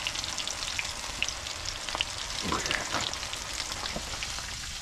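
Breaded catfish pieces frying in hot oil: a steady sizzle with scattered crackling pops.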